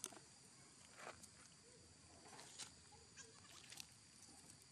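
Near silence: faint outdoor ambience, a steady high-pitched hiss with a few soft clicks.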